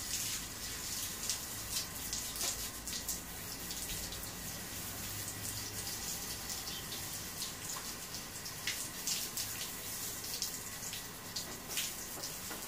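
Garden hose spraying water over a tamarisk bonsai's roots and trunk, washing out the substrate: a steady hiss with many small irregular splashes.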